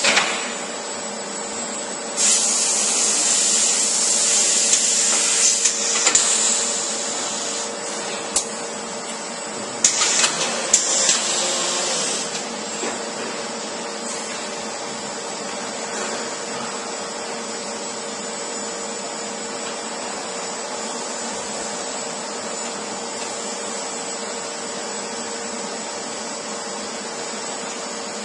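Busellato CNC machining centre running with a steady hum, broken by two loud stretches of hissing rush, about two seconds in and again about ten seconds in, with a few sharp clicks among them.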